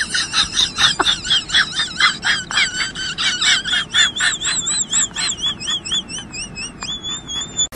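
Golden retriever whining in a rapid series of short, high-pitched, wavering cries, about four a second, that run into one longer wavering whine near the end.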